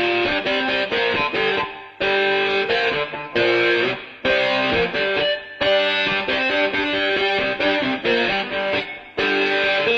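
Guitar music: a run of quick plucked notes, with brief breaks about two, four and nine seconds in.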